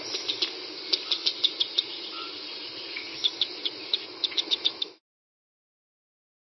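Eurasian red squirrel gnawing a nut: clusters of crisp crunching clicks over a steady hiss, stopping suddenly about five seconds in.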